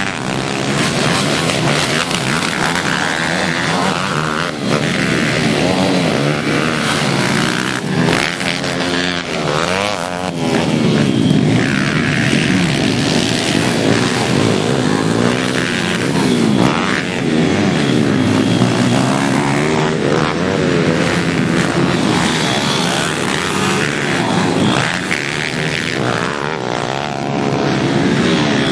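Several pit bike engines revving together, their pitch repeatedly rising and falling as the bikes race around the dirt track.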